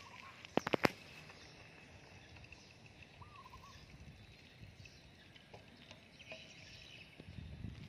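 Outdoor ambience with distant birds chirping steadily and a short wavering bird call about three seconds in. A quick run of four or five sharp knocks comes about half a second in.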